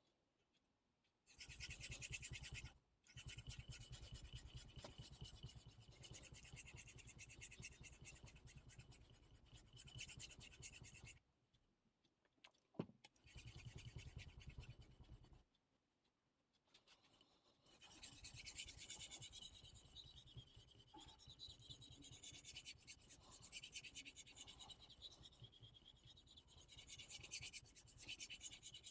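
Steel knife blade scraping back and forth on a wet Suehiro Debado whetstone, in bouts of rapid strokes broken by a few short pauses.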